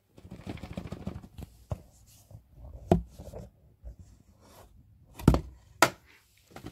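Cardboard packaging being handled: the inner box rustles and scrapes as it is slid out of its sleeve, followed by three sharp knocks of the cardboard against a laminate floor.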